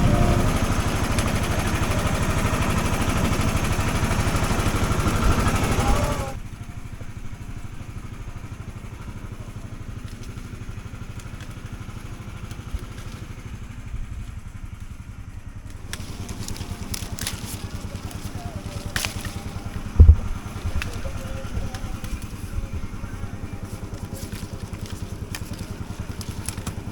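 Farm machine engine running steadily, loud for the first six seconds, then cutting suddenly to a quieter, even running. Scattered clicks and knocks join in later, with one loud thump about twenty seconds in.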